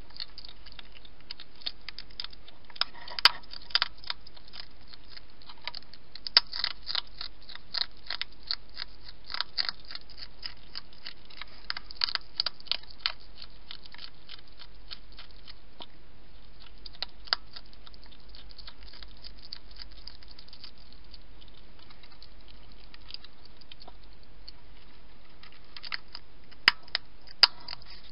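Hedgehog eating from a bowl: irregular crunching, clicking chews, dense for the first half, thinning out through the middle and picking up again near the end.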